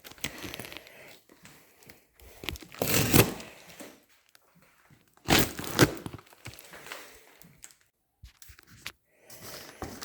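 Packaging being pulled apart during unboxing: crinkling and tearing in irregular bursts, loudest about three seconds in and again around five to six seconds in.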